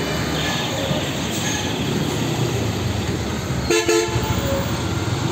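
Jammed road traffic: a steady din of engines and road noise, with a short vehicle horn blast about four seconds in.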